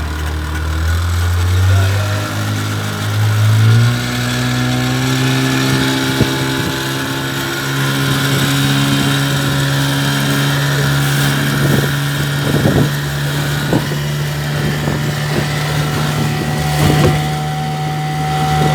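Motorboat engine running, its pitch rising over the first few seconds as it speeds up, then holding steady under a constant rushing hiss.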